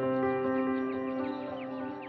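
Background music: sustained synth-pad chords, with a run of short falling high notes over them.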